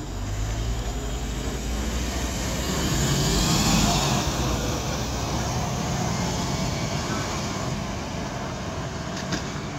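A heavy vehicle passing by: a steady low hum under a wash of running noise that grows louder to a peak around four seconds in, then slowly fades.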